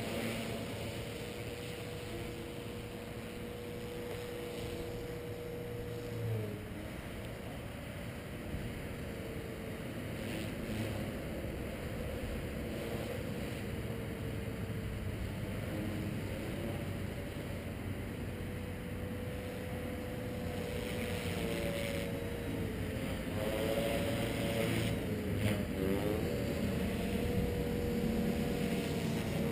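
Walkera V450D01 450-size electric RC helicopter in flight, its brushless motor and rotor head giving a steady whine. The pitch dips briefly about six seconds in and wavers up and down with the manoeuvres in the later part, growing louder toward the end as the helicopter comes lower.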